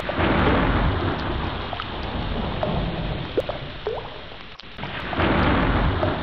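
Heavy rain falling steadily with rolling thunder rumbling underneath. The rumble swells louder at the start and again about five seconds in.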